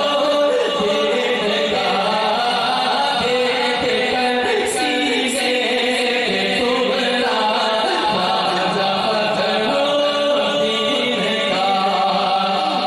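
A man singing an Urdu manqabat, a devotional praise poem, into a microphone in a melodic chanting style, holding long notes with no instruments.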